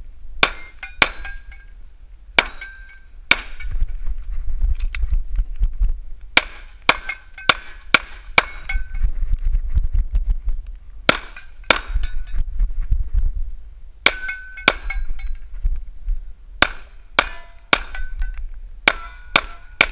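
Semi-automatic pistol fired about eighteen times, mostly in quick pairs and short strings of shots with pauses between. Many shots are followed by a brief ringing tone, over a constant low rumble.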